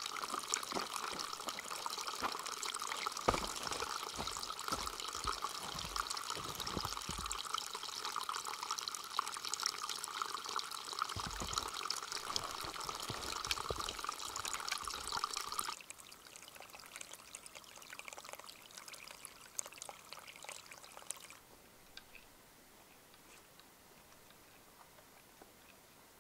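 Running water trickling and splashing steadily. A few dull thumps come in the first half. The sound drops abruptly about sixteen seconds in to something fainter, and again a few seconds later to a low hiss.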